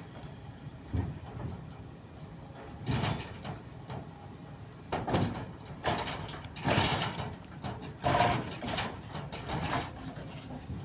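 Kobelco SK130 excavator working a grapple: a series of loud metallic clanks and scrapes every second or so over the low, steady running of the engine.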